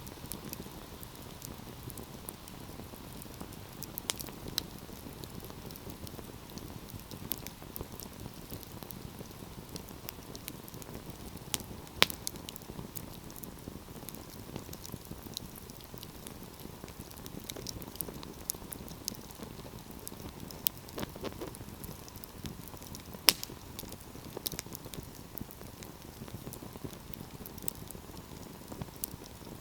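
Wood fire crackling: a steady low rumble and hiss of burning logs, with irregular snaps and pops throughout. Two sharper, louder pops stand out, one about halfway through and one about two-thirds of the way in.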